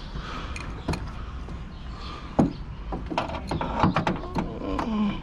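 Irregular metallic clicks and taps of an adjustable wrench being worked onto a hard-to-reach 10 mm fastener, with a quick run of clicks a little past the middle.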